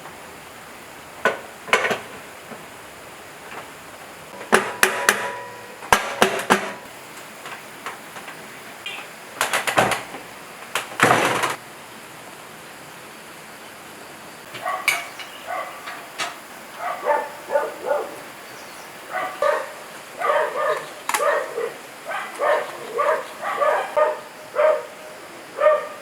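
A few sharp metal knocks and clatters in the first half, then a dog barking over and over, a few short barks a second, through the second half.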